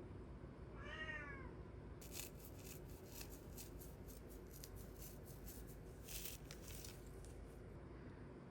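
A house cat meows once, a short call that rises and falls, about a second in. A run of faint, light clicks follows.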